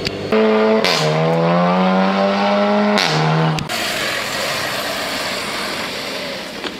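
A tuned car's engine under hard acceleration, pulling away. Its note drops at a gear change about a second in and climbs steadily, then drops again at a second change about three seconds in, each shift marked by a short burst of hiss. After that the car fades into a steady traffic noise.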